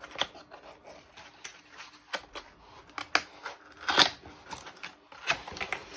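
A cardboard box wrapped in packing tape being opened by hand: irregular scrapes, clicks and rustles of cardboard and tape, with the sharpest scrape about four seconds in.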